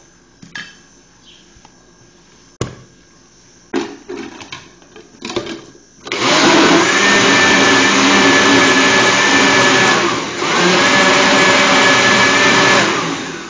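Electric countertop blender blending melon and mango juice. A few knocks come first, then about six seconds in the motor starts with a loud, steady high whine. It drops off briefly around ten seconds in, starts again, and runs down near the end.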